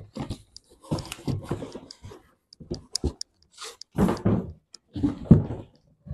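A cardboard boot box being slid out of its cardboard shipping carton and handled on a desk: irregular knocks, thumps and scraping of cardboard, the loudest thump about five seconds in.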